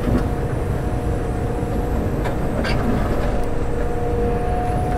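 John Deere 345 excavator's diesel engine and hydraulics running under load, heard from inside the cab, as the boom and bucket are pulled back. There is a steady low rumble with a steady whine over it, and a few faint clicks about halfway through.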